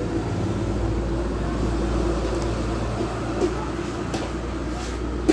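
Steady background street noise: a low, even engine-like hum of traffic with faint distant voices, and a couple of light clicks in the second half.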